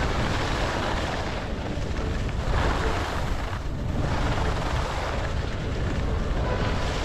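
Wind rushing over an action camera's microphone while skiing downhill, a loud low rumble with the hiss of skis on snow, swelling and easing every second or two.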